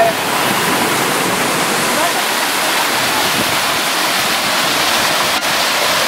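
Small waterfall cascades pouring over sandstone ledges into a rock pool: a steady rushing of falling water.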